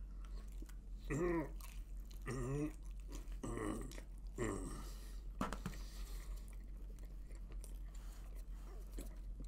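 A man chewing a mouthful of pepperoni pizza, with four short sounds of his voice through the mouthful in the first half and a sharp click near the middle, then quieter chewing.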